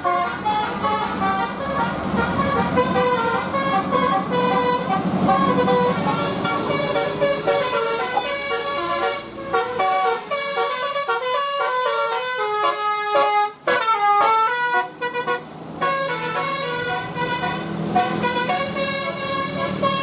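Basuri telolet musical horns on passing tour buses, playing quick melodies note by note, with the buses' engines running underneath at the start and near the end.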